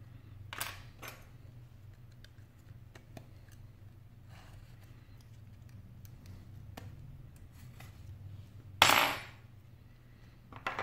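Small clicks and scrapes of a precision screwdriver and fingers handling an iPhone 5's metal frame, with one louder noise lasting about half a second around nine seconds in as the cracked display assembly is pried up from the frame.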